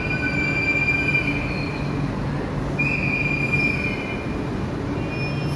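Metro train moving along the platform with a steady rumble of wheels on rails and a high wheel squeal that fades about two seconds in and comes back about three seconds in.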